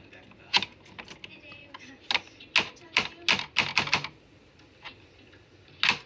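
Irregular sharp clicks and knocks, about a dozen, like hard objects being handled and set down.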